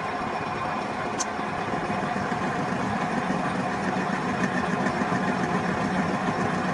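Machinery running steadily, with a brief high squeak about a second in.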